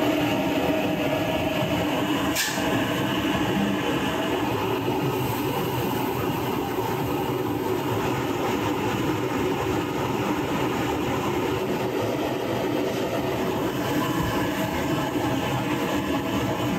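Steady mechanical running noise with a hum, and a single sharp click about two and a half seconds in.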